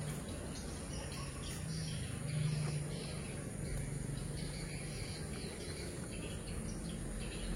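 Insects chirring steadily in the background over a low hum.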